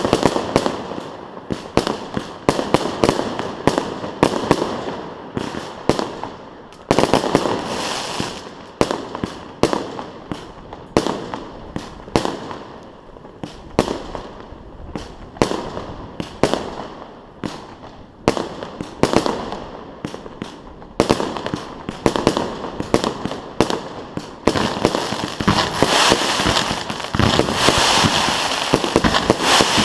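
Fireworks display: a long run of bangs from bursting aerial shells, some fired in quick succession, turning into dense crackling near the end.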